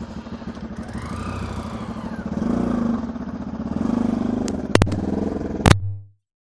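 Motorcycle engine running at low speed, the throttle opened a little twice. Two sharp clicks come near the end, then the sound cuts off suddenly.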